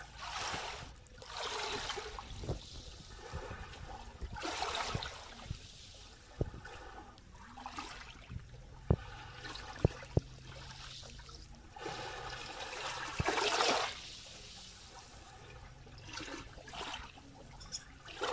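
Small waves lapping up a sandy beach, washing in and draining back in gentle surges every few seconds. Three sharp clicks come about nine and ten seconds in.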